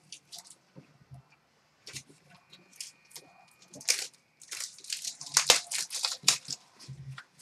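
Crinkling and tearing of a hockey trading-card box's wrapping and cardboard as it is ripped open by hand: a few sharp crackles at first, then a dense run of crackling in the second half.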